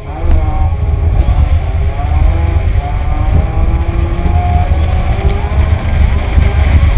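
Nissan S15 Silvia's engine revving up and down as the car drifts on a wet skid pan, under a heavy, steady low rumble.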